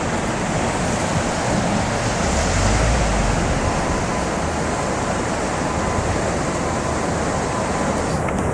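Steady outdoor rushing noise, with wind buffeting the microphone in low gusts about two and a half seconds in.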